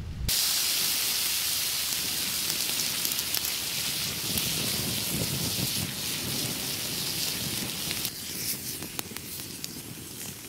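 Wood fire burning in open flames, with a steady hiss and dense crackling. It eases off somewhat near the end.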